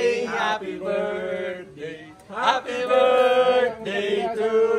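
Male voices singing in long, drawn-out notes, two pitches held together.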